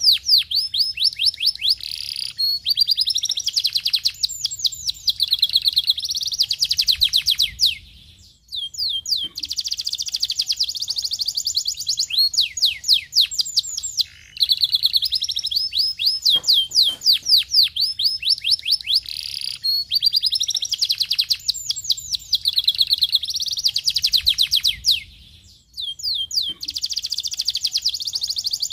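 Domestic canary singing a long song of rapid trills and fast runs of repeated sweeping notes, broken by short pauses about eight seconds in and again near twenty-five seconds.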